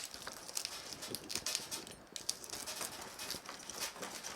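Scattered light taps, clicks and rustles of food and dishes being handled, at an uneven pace.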